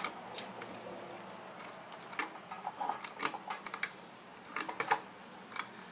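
Ceiling fan pull-chain switch being tugged: a string of irregular sharp clicks and chain rattles, the switch stiff and hard to pull. A faint low hum runs underneath.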